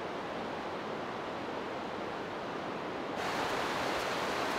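Steady outdoor rushing hiss with no distinct events. About three seconds in it cuts abruptly to a louder, brighter hiss.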